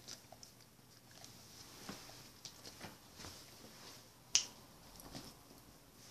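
Faint scattered ticks and taps, with one sharp click about four seconds in that is much louder than the rest.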